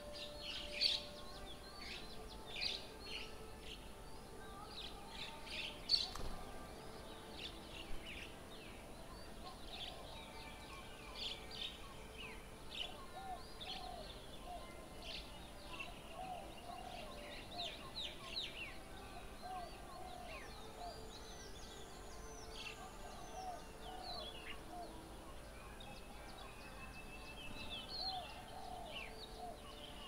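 Wild birds calling around a bird table: many short, high chirps and call notes, and from about halfway on a series of repeated low hooting notes.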